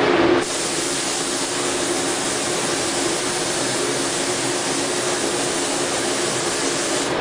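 Spray guns of an automatic spray-painting rig hissing steadily as they atomise paint onto plastic parts, over a faint low hum. About half a second in, the hiss drops a little and turns brighter.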